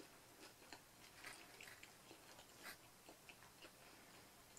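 Faint chewing with the mouth closed: a mouthful of pizza crust being chewed, heard as a few soft, scattered mouth clicks.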